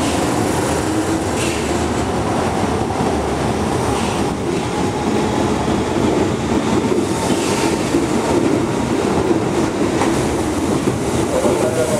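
Hokuso Railway 9000 series electric train pulling into a station platform and slowing to a stop. Steady rumbling wheel and rail noise with a few clacks spaced a few seconds apart.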